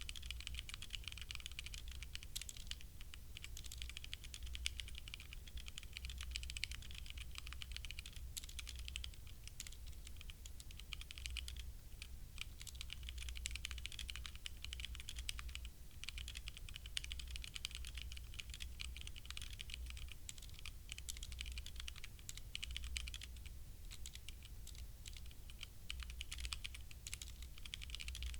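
Continuous fast typing on a HyperX Alloy Origins Core mechanical keyboard with HyperX Red linear switches: a dense, irregular stream of key clicks with no breaks.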